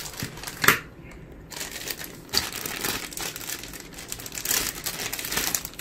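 Clear plastic zip bags of camera mounts crinkling as they are picked up and handled, with a sharp crackle under a second in and denser crinkling through the second half.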